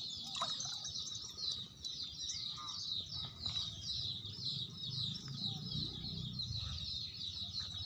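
Birds chirping in a steady run of rapid, high, repeated chirps, about three a second, with a low rumble in the middle.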